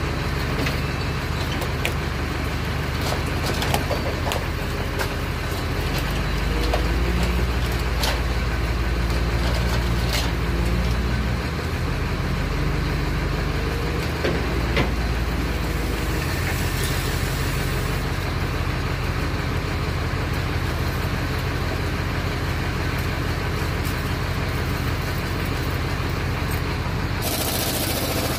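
Heavy machine's diesel engine running steadily as its grapple lifts an engine out of a truck frame, pulling harder for a few seconds partway through, with scattered metal clanks and knocks. A short hiss near the end.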